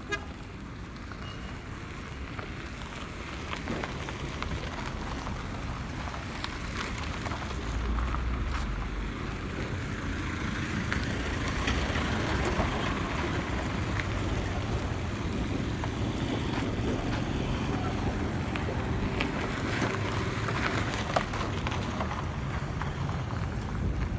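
Road traffic noise: vehicles running by on the road, a steady rumble that grows louder about eight seconds in.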